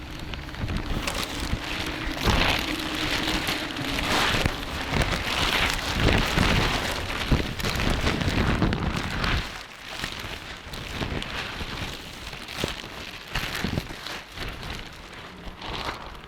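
Tape being pulled off the roll and laid down, a crackling rasp that is loudest for the first nine seconds or so and quieter after.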